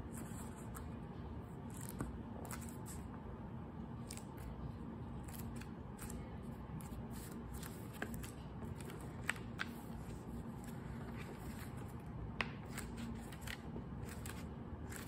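Orange padded aluminium splint being bent and shaped by hand: scattered light crinkles and scrapes with sharp clicks, a few louder ones near the middle and later.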